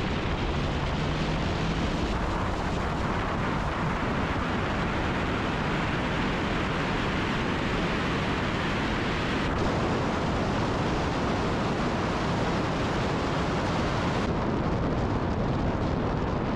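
Steady rush of wind and road noise from an Acura RSX Type-S driving at speed, with its K20Z1 engine not heard as a distinct tone. The sound changes character about two seconds in, again about halfway through, and about two seconds before the end.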